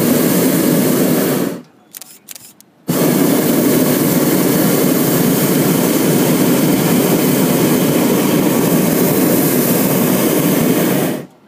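Hot air balloon's propane burner firing: a loud, steady rushing blast that cuts off about a second and a half in, then after a short pause fires again in one long blast of about eight seconds, stopping just before the end.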